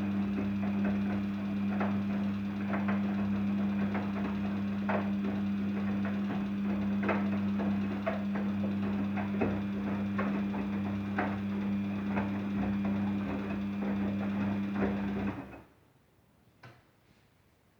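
Daewoo DWD-FT1013 washing machine running on a Cotton 40°C wash: a steady electric hum with light rattling and clicking over it, which cuts off suddenly about fifteen seconds in, followed by a few faint ticks.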